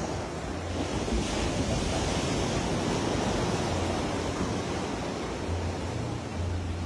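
Sea surf washing onto the shore: a steady rush that swells about a second in and eases after four seconds, with wind rumbling on the microphone.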